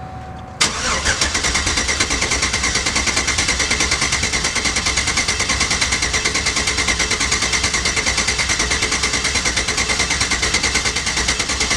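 A V8 with a BTR stage 4 cam idling with an even, choppy rhythmic lope. It comes in abruptly about half a second in, cutting off a steady beep.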